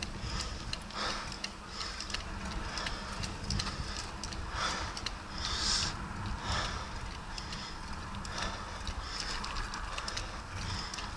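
Mountain bike rolling over rough asphalt and concrete: a steady low rumble with irregular rattling clicks and brief hisses picked up through the handlebar-mounted camera.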